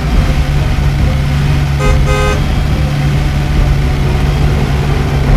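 Car sound effect: a steady low engine drone, with a brief car-horn honk about two seconds in.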